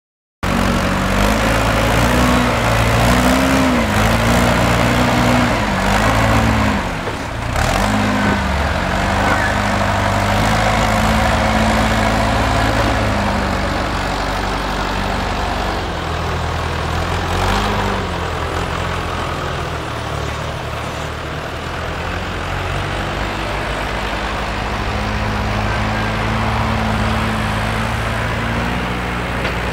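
Diesel engines of a small crawler dozer and an excavator running, the engine note dipping and recovering several times under load.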